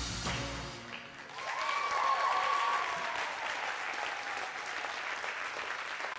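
Skating program music cuts off about a second in, then a small audience applauds, with a brief pitched cheer early in the applause.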